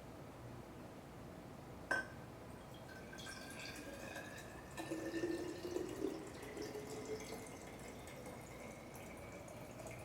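Liquid pouring into a glass container, its pitch rising slowly as it fills, with a single sharp clink about two seconds in.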